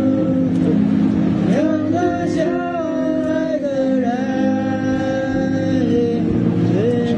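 Slow music: a voice sings long, held notes that slide slowly between pitches over sustained chords.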